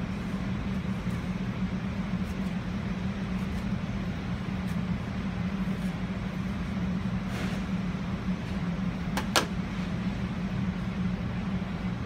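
A steady low mechanical hum, with a faint tap about seven seconds in and a sharp click a little after nine seconds.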